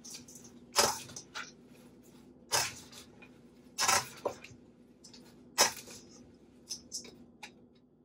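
Escarole salad being tossed in a stainless steel mixing bowl with a wooden spoon and a metal utensil: leaves rustling as the utensils scrape and knock against the bowl. About four loud tossing strokes come a second or two apart, with a few softer ones near the end.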